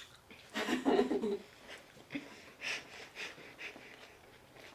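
A child's short voiced sound about half a second in, followed by several short breathy puffs and sniffs.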